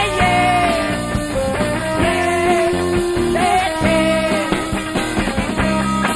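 Rock band playing live, with long held, bending lead notes over bass and drums.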